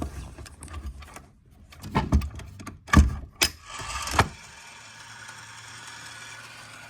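Edwards coded fire alarm pull station being pulled: a series of sharp mechanical clacks and knocks over the first four seconds, the loudest a little before three seconds in, followed by a faint steady whir.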